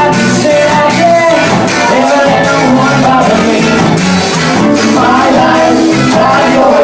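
Live ska band playing loud amplified music, with electric guitar over a steady drum beat.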